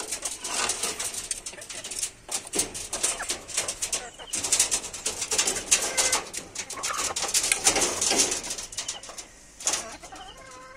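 Hens pecking at a ripe mango on a wire-mesh cage floor: rapid, irregular clicks and rustling, with a few soft, low hen calls.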